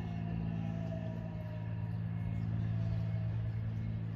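Steady low engine hum with a faint, slightly falling whine, growing gradually louder.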